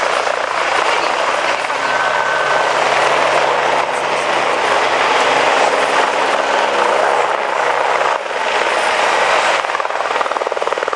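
Helicopters flying low overhead: a steady, loud rotor and turbine roar, with a rapid, even rotor beat coming through near the end.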